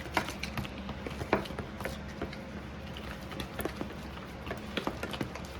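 Homemade slime being mixed, giving irregular small sticky clicks and squelches over a steady low hum.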